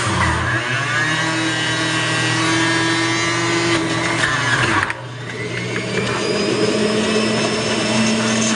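Breville centrifugal juicer motor running under load as produce is pushed down the feed chute and shredded, a loud steady whine and grind. Its pitch sags and recovers, with a brief dip about five seconds in.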